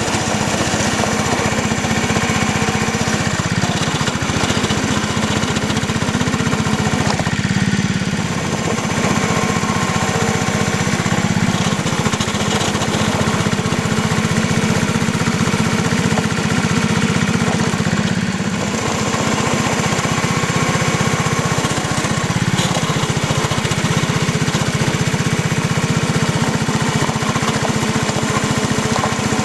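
Small engine of a 1.5-inch-scale ride-on diesel switcher, running steadily like a lawn mower as the locomotive pushes a snow plow through snow.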